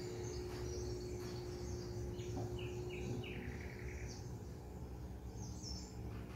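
Faint chirping of a small bird: short high notes scattered through, with a quick run of three or four stepped notes about halfway through. Under it runs a steady low hum of room noise.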